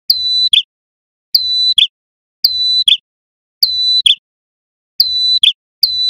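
Male prenjak kepala merah (red-headed prinia) singing its loud repeated call, six times, about once a second. Each call is a steady high note held for just under half a second, ending in a short lower note.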